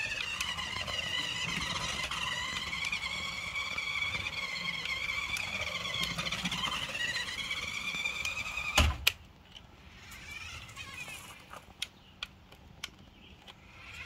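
Small electric RC car's motor and gearing whining, the pitch rising and falling as it speeds up and slows down. About nine seconds in there is a sharp knock, the loudest sound, then the whine stops and a few faint clicks follow before it starts up again with a rising whine at the very end.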